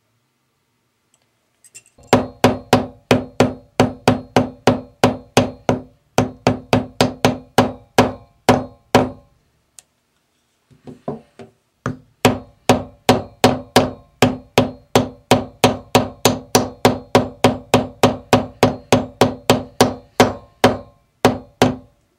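A yellow plastic-headed mallet repeatedly striking a steel design stamp on an earring blank set on a steel bench block, about three blows a second. The blows stop briefly midway for a few light taps, then resume.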